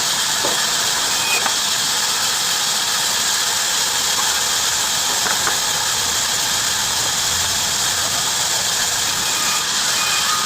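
Heavy-duty bandsaw running, its blade cutting through wood with a steady high hiss.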